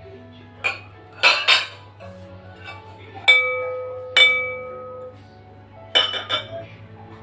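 Borosilicate glass bowls clinking against each other as they are handled and set down. There are several sharp clinks, and two of them, near the middle, ring on for about a second with a clear glassy tone.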